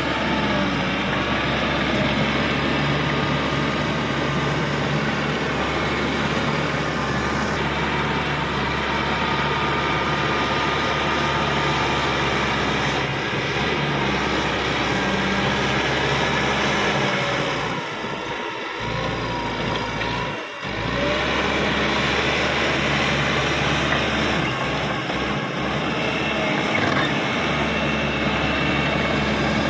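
Caterpillar D5K XL bulldozer working, its diesel engine running steadily, with two short drops in level about two-thirds of the way through.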